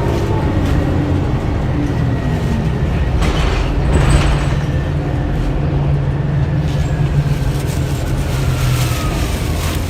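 Inside the cabin of a 2009 Orion VII Next Generation hybrid bus under way: the Cummins ISB diesel runs steadily beneath the whine of the BAE HybriDrive electric drive, which glides down and up in pitch as the speed changes. A short hiss comes about three to four seconds in.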